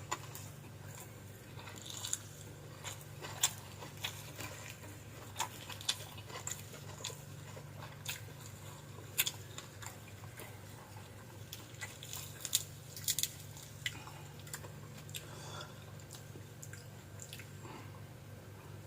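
A person chewing and biting food close to the microphone: irregular crunchy clicks and mouth sounds, over a steady low hum.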